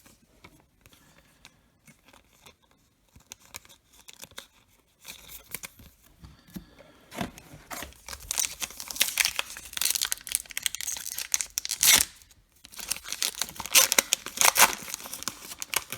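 A baseball card pack wrapper being torn open and crinkled in the hands: faint handling ticks at first, then loud crackling tearing over the second half, with a short pause in between.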